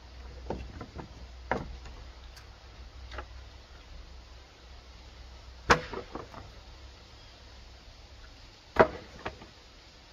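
Irregular wooden knocks and clatters from offcut boards being handled at the coop wall. There are a few light knocks, then two sharp, loud ones about six and nine seconds in, each followed by a couple of smaller rattling knocks.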